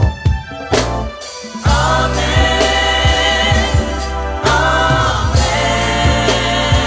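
Gospel music: a choir singing over a band with bass and drums, the voices coming in about a second and a half in.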